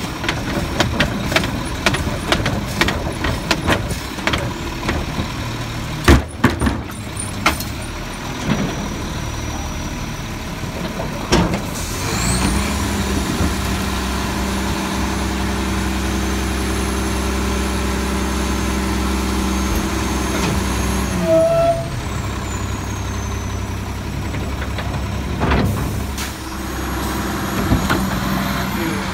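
Bridgeport Trinity garbage truck's hydraulic packer compacting yard waste in the hopper. For the first ten seconds or so there are clanks and knocks. About twelve seconds in, the engine speeds up and holds steady with a high whine, then drops back about twenty-one seconds in, and it rises again near the end.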